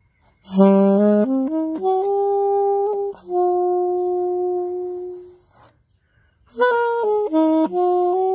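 Alto saxophone playing a slow melody: two phrases of notes stepping upward, each settling into a long held note, with a short breath pause between them about five and a half seconds in.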